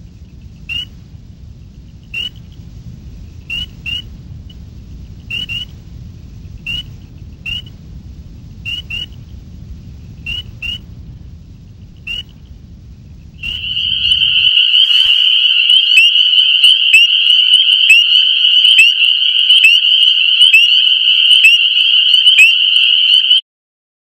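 Spring peepers calling. At first there are single high, slightly rising peeps about a second apart over low background noise. From about halfway through, a much louder dense chorus of many peepers calling together makes a continuous shrill ringing, which cuts off suddenly near the end.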